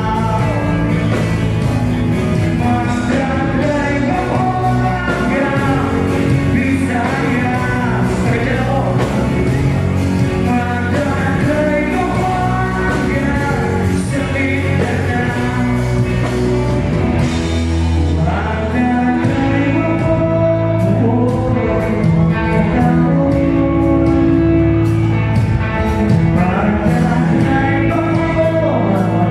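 Music: a song with a singing voice over guitar and a steady beat, played loud throughout.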